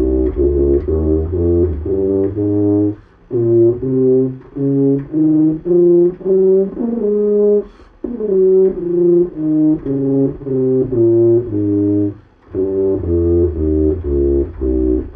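Tuba playing an A-flat major scale in separately tongued notes, climbing step by step to a held top note about halfway through, then coming back down, with short breaths between phrases.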